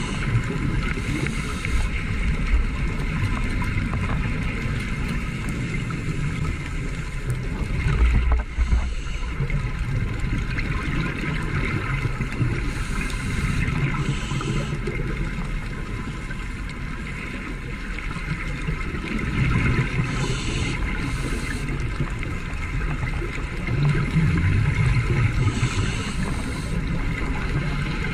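Muffled underwater noise picked up by a camera in a housing: a steady low rumble of water, with a short burst of hiss every few seconds and a heavier low thump about eight seconds in.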